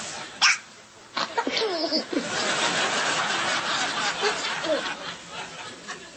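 A baby hiccuping: a sharp, loud hiccup about half a second in and a smaller one soon after, followed by short voice sounds that fall in pitch, over a steady hiss.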